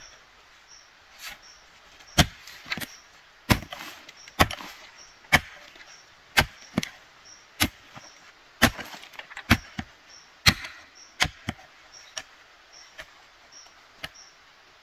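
Hand hoe chopping into soil with dull strikes about once a second, digging planting holes for corn. The strikes grow faint and sparse near the end.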